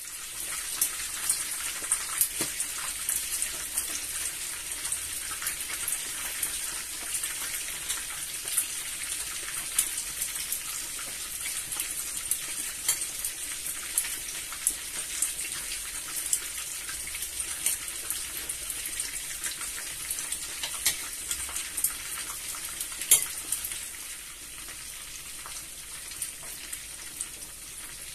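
Meatballs frying in hot oil in a pan: a steady sizzle with frequent crackling pops. One louder pop comes a little before the end, and the sizzle drops slightly after it.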